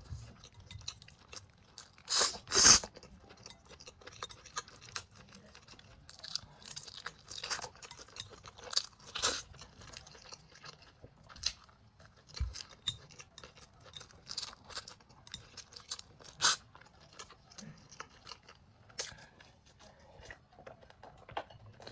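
A person chewing and eating close to the microphone: irregular mouth clicks and smacks throughout, with the loudest pair of sounds about two seconds in.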